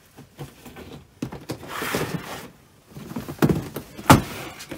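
Rummaging through clear plastic storage boxes on shelving. Items rustle for about a second, then a few knocks of the boxes being moved, the sharpest and loudest just before the end.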